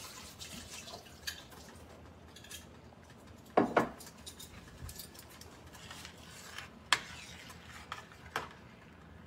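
Metal kitchen utensils clinking against pans: a few sharp clinks with a short ring, the loudest a double clink about three and a half seconds in, then single clinks near seven and eight seconds.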